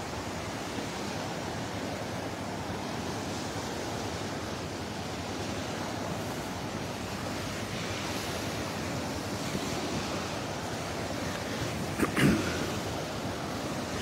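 Surf on the Gulf of Mexico breaking and washing up the beach in a steady rush; the water is rough. A short knock about twelve seconds in.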